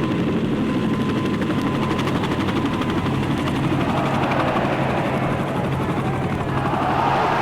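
Helicopter hovering: a steady rotor chop over an engine drone. Over the last few seconds another wavering sound swells in beneath it.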